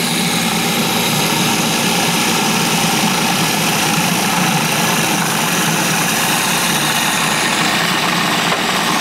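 Electric food processor motor running steadily, blending dandelion-leaf pesto as olive oil is poured in through the feed tube.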